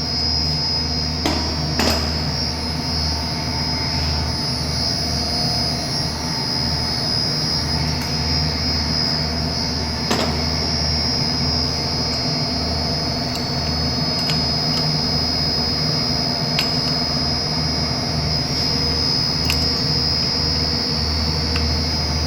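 Chiller plant-room pumps running with a steady low drone and a constant high whine, with a few sharp metal clicks scattered through, as a wrench tightens the loose bolts on the pump's bellows connector.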